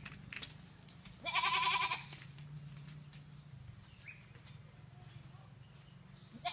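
A goat bleating once: a single wavering call of under a second, about a second in.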